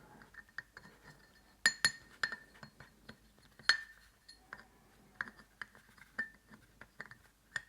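Irregular light metallic clinks and taps of steel engine parts knocking against each other, some ringing briefly, as a Moki 215cc radial engine's master rod and connecting rods are worked around inside the crankcase to find a way out.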